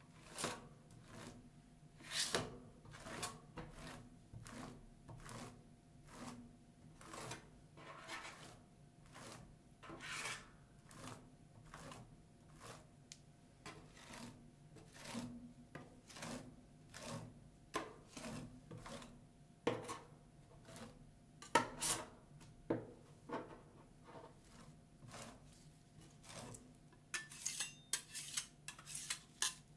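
Metal spatulas scraping and spreading ice cream mixture across a rolled ice cream machine's chilled steel plate, in short strokes about once or twice a second. Near the end the spatula edge taps rapidly on the plate, chopping the mixture.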